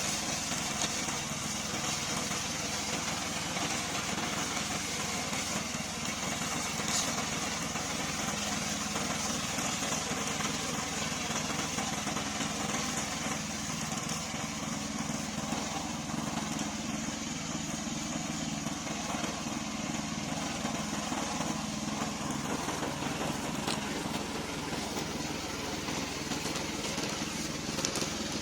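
Gasoline engine of a remote-control lawn mower running steadily at an even speed.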